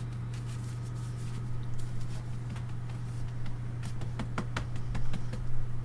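Hands handling and patting soft biscuit dough on a floured mat: a run of light, quick pats and taps that grows busier in the second half. A steady low hum sits underneath.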